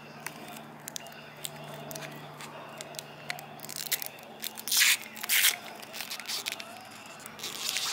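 Crinkling and tearing of thin clear plastic wrapping as it is peeled off a small plastic lens protector by hand. The crackles are irregular, with the loudest crinkles about five seconds in and again near the end.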